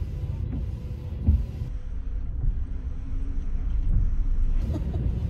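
Low rumble of a car's cabin while driving, road and engine noise, with a few soft low thumps.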